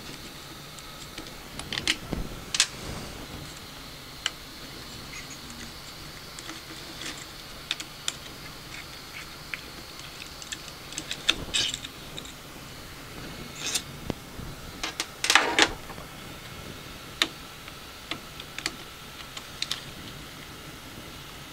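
Small plastic and metal parts of a 3D printer's print head being handled and unscrewed by hand: scattered light clicks and clatter. The loudest is a short rattling scrape about fifteen seconds in.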